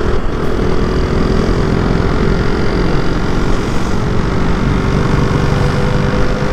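KTM Duke 200's single-cylinder engine and exhaust running at a steady cruise, heard from on the moving motorcycle, its note holding an even pitch.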